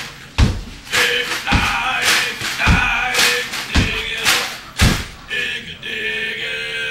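A man singing a song live, with heavy foot stomps on a wooden floor keeping time about once a second under the voice.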